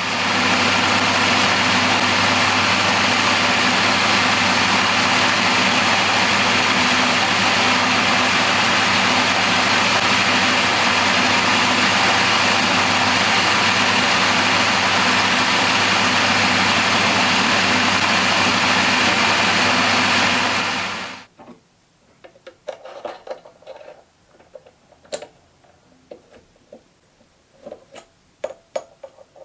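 Milling machine spindle running steadily at constant speed while a small drill bores half way into a part held in the vise; the motor stops abruptly about two-thirds of the way through. Light metallic clicks and knocks follow as the lathe chuck is handled.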